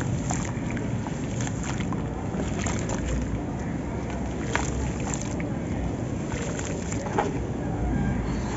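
Hands squeezing, crumbling and stirring wet grey sand in a plastic basin of water: sloshing and splashing with gritty crackles and drips, over a steady low rumble.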